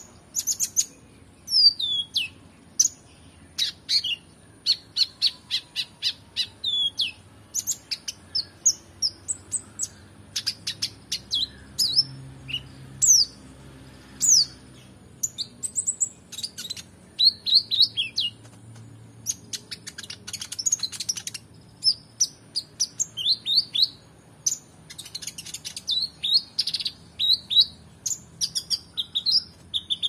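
Kolibri ninja (konin) sunbird singing a fast, unbroken song of short high chirps, slurred whistled notes and clicks, packed with phrases borrowed from other songbirds.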